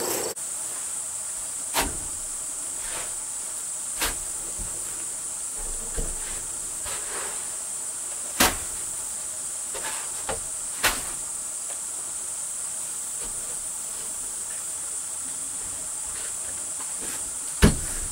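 Steady high-pitched buzz of insects, with a handful of scattered short knocks and clicks, the sharpest about halfway through and just before the end.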